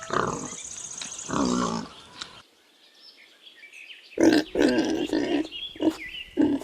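Domestic pig grunting: two grunts at the start, a short pause, then a run of quick grunts.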